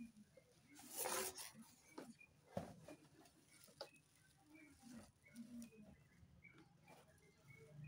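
Plastic wrap crinkling and cardboard packaging rustling as an air fryer is pulled out of its box. The loudest crinkle comes about a second in, followed by scattered light knocks and clicks from the carton.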